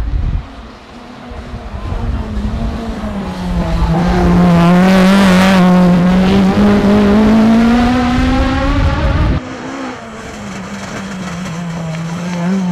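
Toyota rally car engines running hard on a tarmac stage, across several edited shots. One car's engine note climbs steadily as it accelerates, loudest from about four to nine seconds in, with a rush of noise as it passes closest. An abrupt cut about nine seconds in brings in another car's engine, quieter and steadier.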